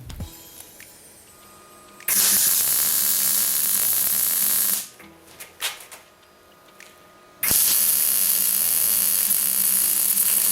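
Two long bursts of steady hissing, like a spray, each lasting about three seconds, with a pause of about three seconds between them.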